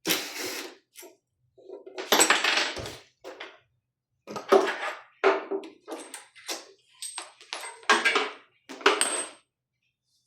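Irregular metallic clinks and clatter, about a dozen in all, from the ventilator's hard parts being handled and set down during disassembly. A few short, high, ringing clinks come in the second half.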